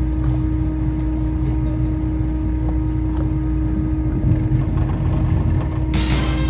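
Fishing boat's engine running with a steady low drone. A short burst of hiss comes near the end.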